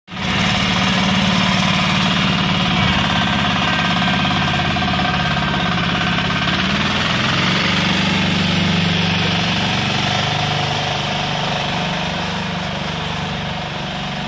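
The 10 hp diesel engine of a John Deere 300 garden tractor running steadily as the tractor drives off, growing fainter over the last few seconds as it moves away.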